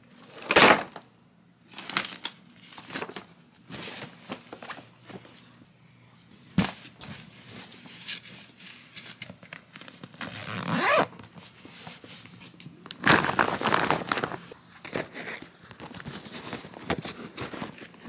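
Close-up handling of a zippered hard-shell suitcase and clothes being packed: irregular rustling, scraping and zipper sounds. There is a loud burst right at the start and a sharp knock about six seconds in.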